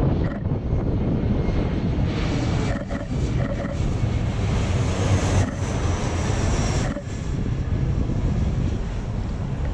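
Twin-engine jet airliner's engines passing low overhead: a loud, continuous rushing roar that is strongest in the middle as the jet goes over, then eases off as it moves away.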